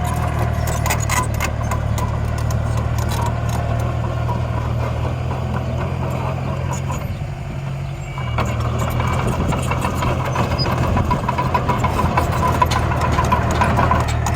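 Steady low engine drone of miniature construction machines (dump trucks and bulldozer), with scattered small clicks and knocks. The drone dips about seven seconds in and picks up again a second later.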